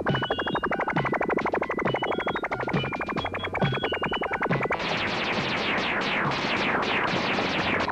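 Synthesizer film score playing a rapid pulsing note pattern. About five seconds in, the pulsing stops and a dense noisy wash with repeated downward sweeps takes over.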